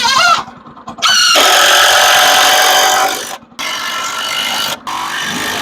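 Two-stroke chainsaw revving and cutting through a wet log, with the washer fluid used as blade lubricant. It revs up briefly, then from about a second in runs at high revs, with two short drops in revs before the end.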